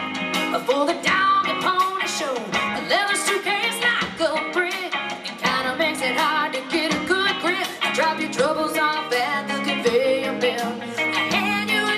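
Live rock band playing through a PA: electric guitar, bass and drum kit, with a woman singing lead.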